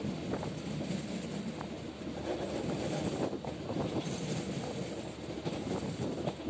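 Passenger train running along the track heard from an open carriage window: a steady rumble of wheels on rail with scattered clicks and clatter.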